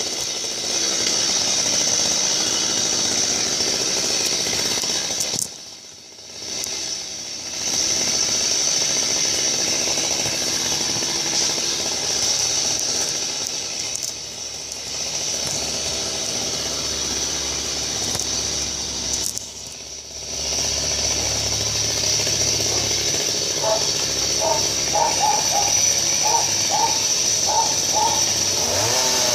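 Chainsaw running hard, cutting wood up in a tree. It eases off sharply twice, about six seconds in and again about twenty seconds in, before returning to full speed.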